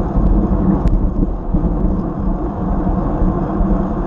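Wind buffeting a racing cyclist's action-camera microphone at about 24 mph: a loud, steady low rumble that rises and falls in gusts. A faint click about a second in.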